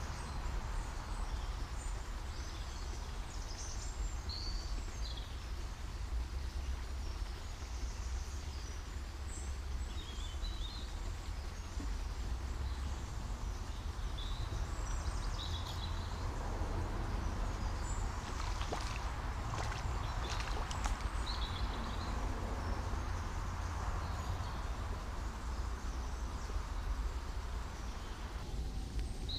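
Riverside outdoor ambience: a steady low rumble with scattered short, high bird chirps, and a few faint clicks in the middle.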